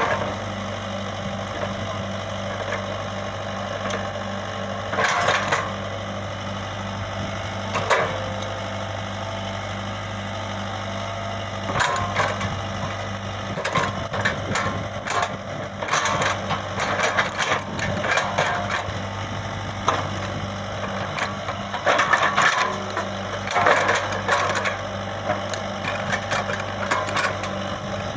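Diesel engine of a Komatsu PC75UU excavator running steadily, with irregular clanks and rattles of the machine's metal parts coming and going over it, busiest in the second half.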